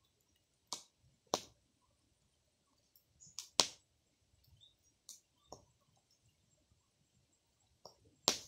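Small fire of dry leaves and husks crackling, with about eight sharp, irregular pops.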